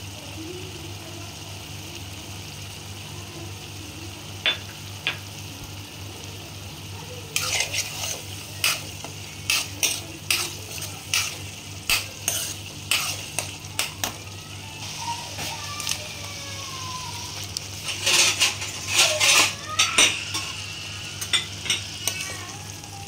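Masala sizzling in a frying pan while a metal spoon stirs it. From about seven seconds in, the spoon clacks and scrapes against the pan about once a second. Near the end comes a louder cluster of knocks as the fried paneer pieces go in and are stirred.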